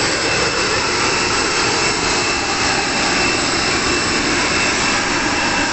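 Parked airliner's turbine running on the apron: a steady rushing noise with a constant high-pitched whine over it.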